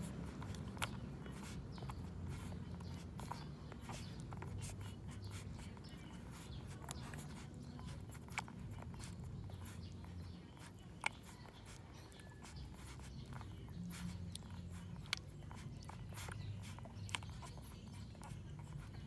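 Newborn puppies suckling at their mother's teats: scattered, irregular soft clicks, a few of them sharper, over a low steady background rumble.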